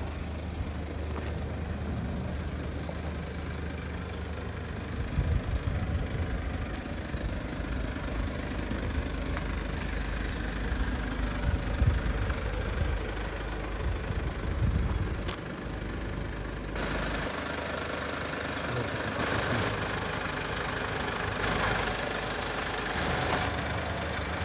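Mercedes Vito van's engine running steadily, a low rumble. About two-thirds of the way through, more hiss joins it.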